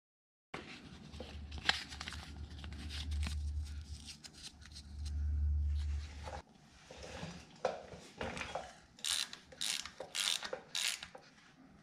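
Socket ratchet clicking in a run of quick strokes in the latter half as the crankshaft position sensor bracket bolt is tightened. Before that come small metal clicks from parts being handled over a low hum that cuts off about halfway through.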